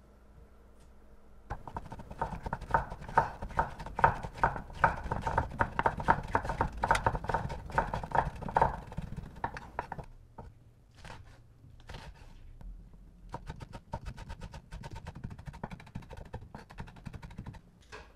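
Chef's knife chopping bell peppers on a wooden cutting board: rapid knocks of the blade on the board, several a second, starting about a second and a half in. About ten seconds in the chopping turns quieter and more spaced out.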